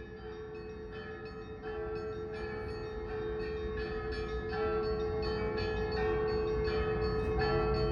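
Russian Orthodox church bells ringing, a quick run of strikes on several bells, about two or three a second, over a steady low hum, growing louder.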